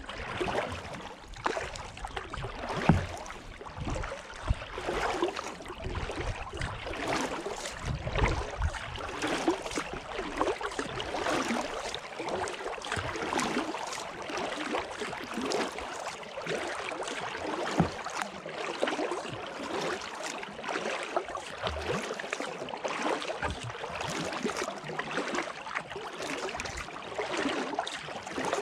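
Kayak paddle strokes on calm water: the blade dips and splashes, and water trickles and drips off it, with a few sharp knocks among the strokes.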